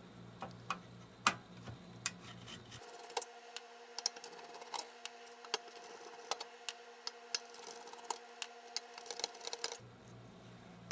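Small irregular clicks and ticks of a screwdriver turning out the screws that hold an LCD monitor's power board, a few clicks a second.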